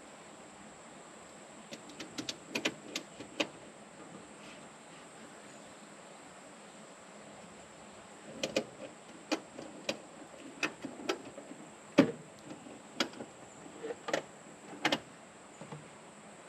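Irregular sharp knocks and clicks of hand tools and metal parts being handled during work on the excavator's fan and belts. There is a short cluster about two seconds in and a longer, uneven series from about eight seconds to near the end.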